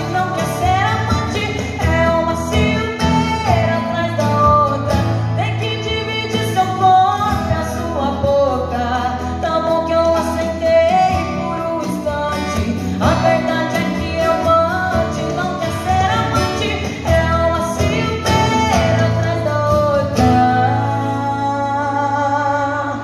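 A woman singing a sertanejo song into a microphone, amplified through PA speakers, with a strummed acoustic guitar accompanying her.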